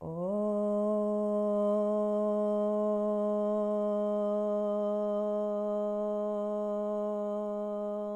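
A woman's voice chanting one long, drawn-out Om on the out-breath. She slides briefly up into the note at the start, then holds it on one steady pitch.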